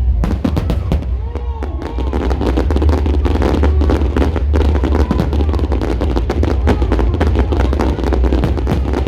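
A string of firecrackers going off in a dense, rapid crackle that starts just after the beginning and keeps on, with a few short whistling glides early on and a steady low hum underneath.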